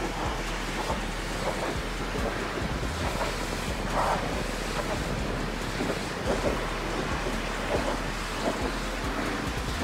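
High-pressure water jet from a pressure-washer lance hissing and spattering against the steel tipper body of a muddy dump truck, a steady rush with brief louder splashes every second or so and a low hum underneath.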